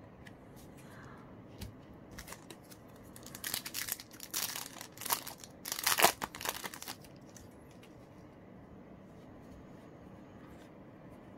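Foil Yu-Gi-Oh! booster pack being crinkled and torn open by hand: a run of rustles and rips starting about two seconds in, loudest about six seconds in, and stopping about a second later.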